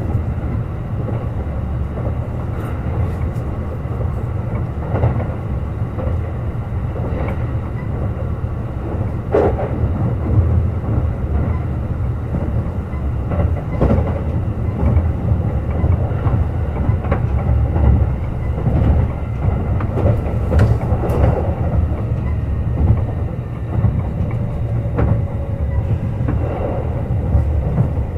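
Kintetsu 21000-series Urban Liner Plus electric express train running at speed: a steady low rumble with occasional clicks of the wheels passing over rail joints.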